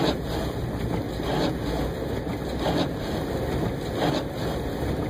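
Steady engine and road noise inside the cabin of a four-wheel-drive vehicle driving slowly through snow, with a faint sound repeating about every second and a half.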